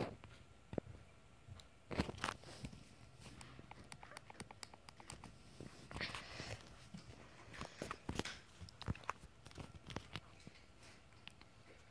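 Irregular soft clicks and crinkly rustles, the sound of handling, with a few louder crackles about two, six and eight seconds in.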